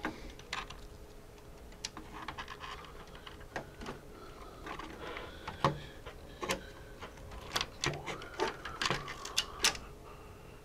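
Irregular small clicks, taps and scrapes of a circuit board being handled and fitted into a metal oscilloscope chassis, with a quick run of sharper clicks in the second half.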